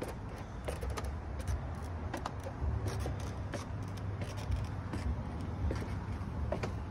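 Wind rumbling on a phone microphone outdoors, with scattered light clicks and knocks from handling and steps on wood.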